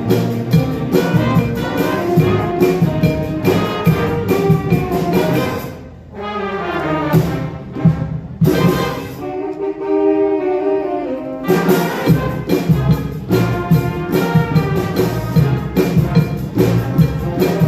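A high school band playing an upbeat piece with a steady drum beat. About six seconds in the drums drop out for a softer passage of held chords, and the beat comes back about five seconds later.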